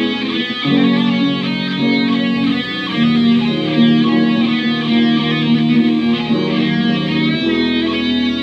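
A live band plays a slow rock ballad, led by guitar. Sustained notes and chords shift every second or two.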